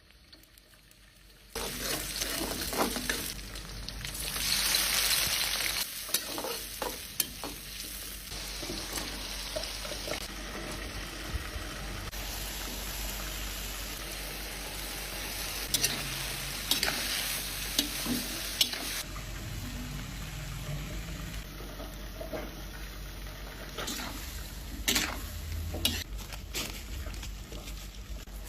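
Shrimp and broccoli stir-frying in a pan: a steady sizzle with frequent clicks and scrapes of stirring, starting about a second and a half in.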